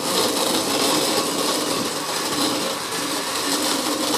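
Countertop blender running steadily, its motor and blades churning a thick fruit smoothie.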